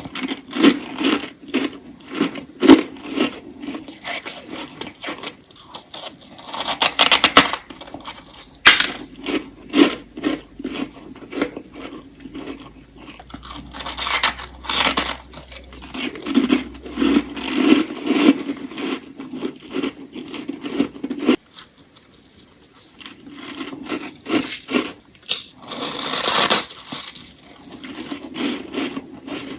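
Freezer frost crunching as it is bitten and chewed, close to the microphone: many quick, irregular crunches with a short pause about three-quarters of the way through.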